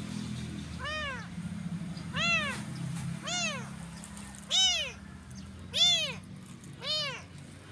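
A small kitten meowing over and over, six high cries about a second apart, each rising and falling in pitch, the fourth and fifth the loudest.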